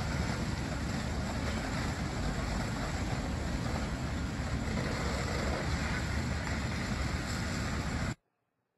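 Steady rushing noise of a large building fire scene at night, with fire engines standing by. It cuts off suddenly about eight seconds in.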